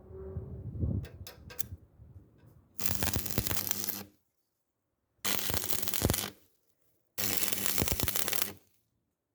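Three separate bursts of loud rustling, crinkling noise, each lasting a little over a second and cutting off abruptly into dead silence, after a few faint clicks and handling noises.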